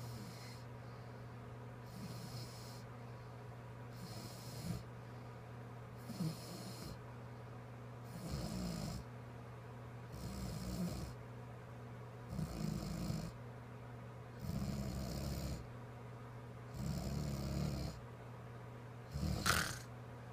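A sleeping girl snoring, about one snore every two seconds. The snores grow louder from about halfway through, and the last one is the loudest and sharpest.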